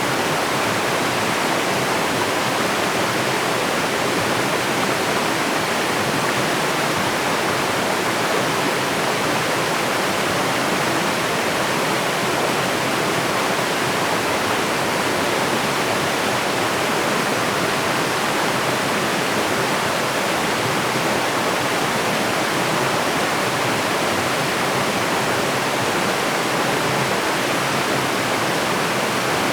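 Steady rush of water falling over a low cascade, an even, unbroken noise with no change throughout.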